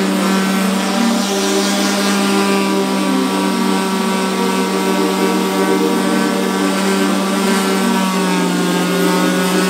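Chicago Electric random orbital sander running at steady speed, its pad sanding paint bubbles off a car's painted steel quarter panel down toward bare metal. The motor gives an even, unbroken hum.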